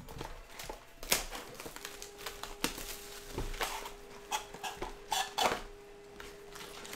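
Plastic shrink wrap crinkling and tearing as it is stripped off a cardboard trading-card box, then the box being opened, with scattered sharp crackles and taps; a faint steady hum joins about two seconds in.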